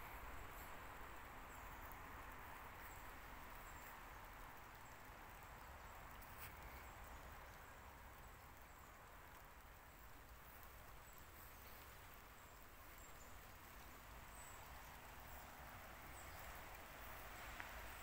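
Near silence: faint outdoor ambience, a steady soft hiss with occasional brief, faint high chirps.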